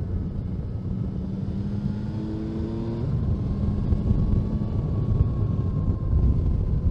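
Yamaha Tracer 9's three-cylinder engine running on the move at a steady cruise. Its tone rises a little over the first three seconds, then holds.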